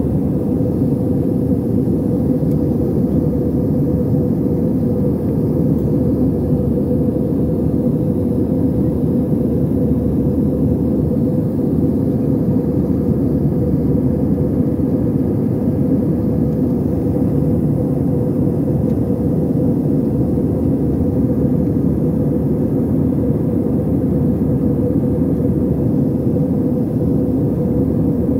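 Steady drone inside a jet airliner's cabin in flight: engine and airflow noise from a seat over the wing, with a constant hum running through it.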